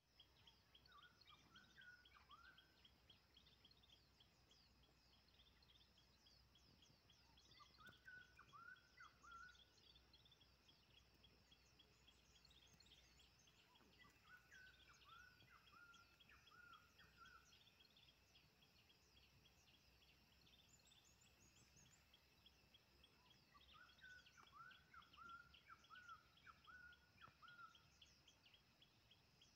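Faint outdoor ambience: a songbird sings short warbled phrases a few seconds long, four times, over a steady, fast, even chirping of insects.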